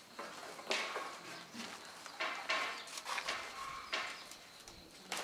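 Irregular sharp clicks and knocks of floor-tiling work: a trowel and ceramic tiles being knocked and set into mortar.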